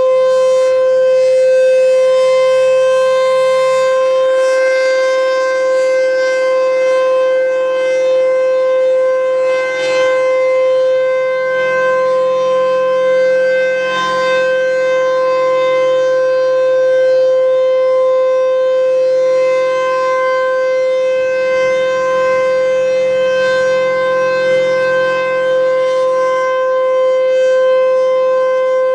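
Federal Signal Thunderbolt 1000 outdoor warning siren sounding a steady tone held at one pitch, loud, with its loudness wavering slightly.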